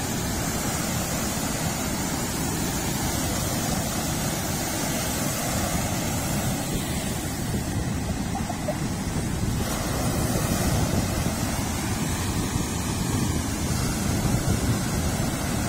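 Sea surf washing onto the beach with wind buffeting the microphone: a steady rushing noise, heaviest in the low end.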